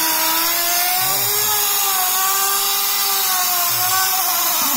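Compressed air blasting through a turbocharger, a loud steady hiss, with the spinning turbine and compressor wheels whining in a pitch that drifts slowly up and down.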